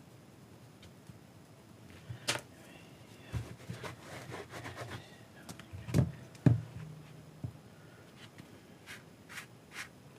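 Quiet handling noises from weathering a prop staff: a cloth rubbing paint off, with a few sharp knocks and light taps as the staff and paint are handled and set down.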